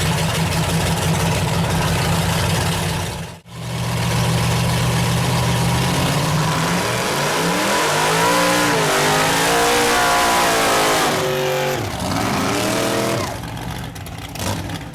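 Mud truck engine running at a steady speed, then, after a brief dropout about three and a half seconds in, revving up and down several times before easing off near the end.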